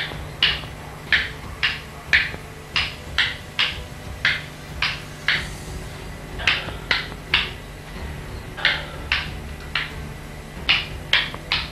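A series of short, sharp blows, mostly in quick groups of three about half a second apart, repeated several times over a low steady hum.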